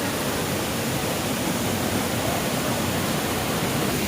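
Waterfall: falling water rushing in a steady, even wash of noise.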